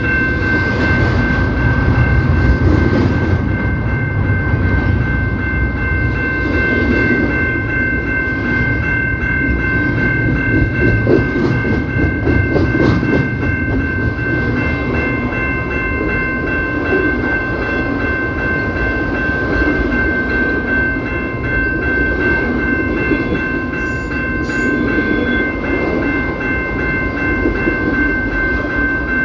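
Train rolling past, its railcar wheels clacking over the rail joints over a steady rumble, with a steady high-pitched whine that lasts throughout.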